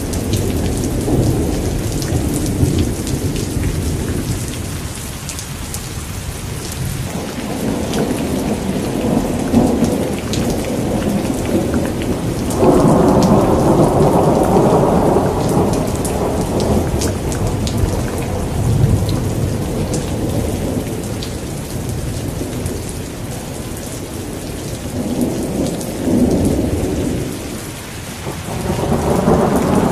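Thunderstorm: steady rain hiss with repeated rolls of thunder. The loudest roll breaks in suddenly about 13 seconds in and lasts several seconds, and another builds near the end.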